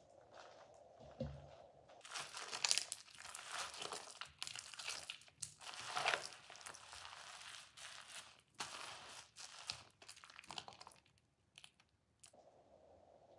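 A soaked white soap bar squeezed and crumbled by hand over a wet sponge, crackling in uneven bursts that thin out and stop a little before the end.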